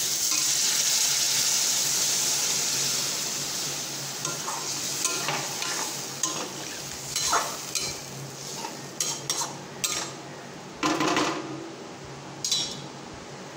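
Water poured into a hot aluminium kadai of frying pork hits the oil and sizzles loudly, the hiss dying down over several seconds. A metal spatula then stirs and scrapes the pan, with a string of sharp knocks against its side.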